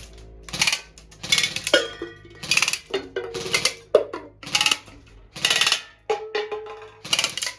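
Music with a steady percussive beat, a sharp strike about once a second with held pitched notes between the strikes.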